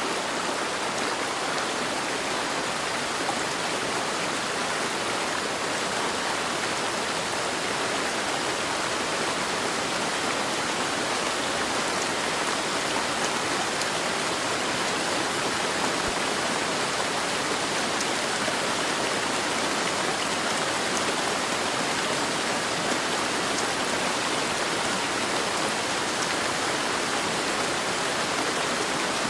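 Steady heavy rain: a dense, even hiss of rainfall with faint drop ticks, unchanging throughout.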